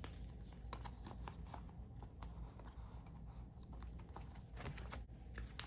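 Photocards being slid into clear plastic binder pocket pages: faint, scattered rustles and light clicks of handled plastic.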